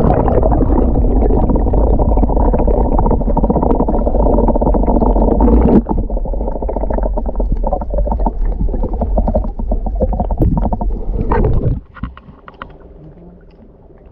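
Muffled underwater rumble and water rush from a camera held under the sea surface, with little above the low and mid range. It drops off sharply about twelve seconds in as the camera comes out of the water.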